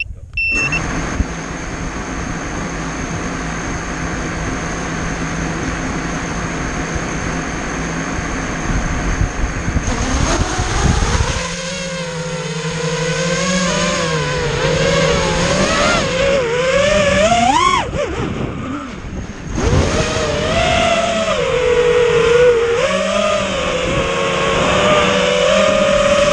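FPV racing quadcopter's brushless motors: a steady buzz for about ten seconds, then a whine that rises and falls again and again as the throttle changes, with a short drop in pitch and level near eighteen seconds.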